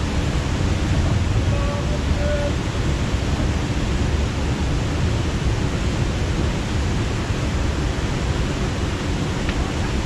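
Steady rushing noise, with a few faint distant voices calling in the first few seconds.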